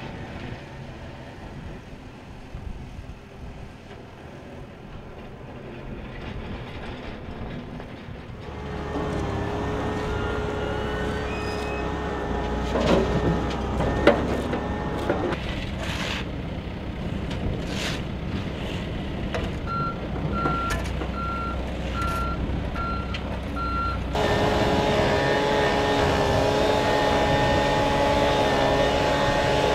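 Heavy construction machinery at work: a backhoe loader's diesel engine running, with two sharp metal clanks from its bucket partway through. A reversing beeper sounds a string of evenly spaced beeps. About two-thirds of the way in, a louder engine with a wavering whine takes over.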